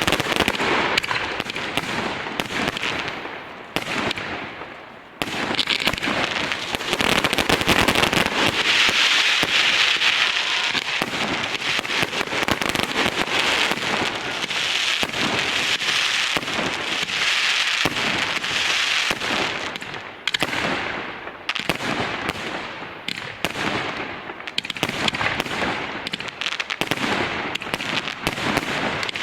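Fireworks salute: dense, continuous crackling and popping of many bursting shells, briefly easing about four seconds in and again about twenty seconds in.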